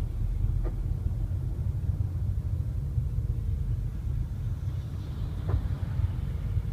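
Car driving with a steady low rumble, with two sharp knocks about five seconds apart, one near the start and one near the end. These are the knocks from the seven-speed DSG7 DQ500 dual-clutch gearbox in third gear.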